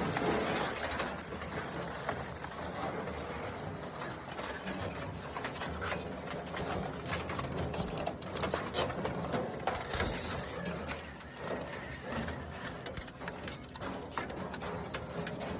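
Industrial metal shredder running and chewing up scrap car body panels: a steady machine noise broken by frequent sharp metallic cracks and knocks as the sheet steel is torn.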